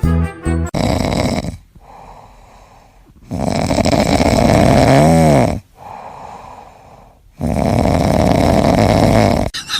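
A sleeping pet snoring loudly: three long snores about three seconds apart, with quieter breaths between, the middle snore carrying a wavering whistle.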